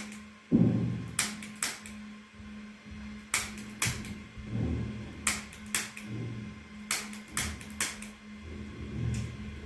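A string of about a dozen sharp clicks and slaps, often in quick pairs, with dull low thuds between them over a steady low hum.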